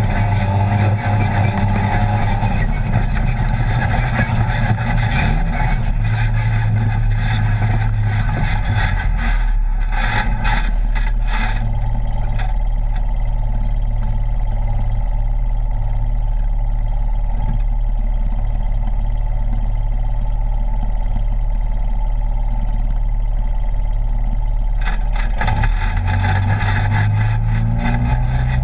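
Polaris RZR side-by-side's twin-cylinder engine running as it drives a dirt trail, heard from inside the open cab, its note stepping up and down with the throttle. Rattle and trail noise fill the first part, ease off through the middle and pick up again near the end.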